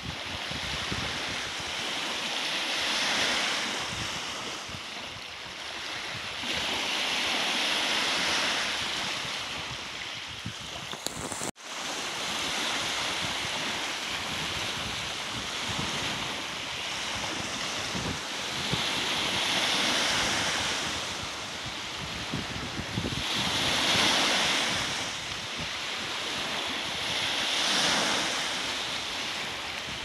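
Small waves breaking and washing up a sandy lake shore, the surf swelling and ebbing every few seconds, with some wind on the microphone. The sound drops out for an instant about eleven seconds in.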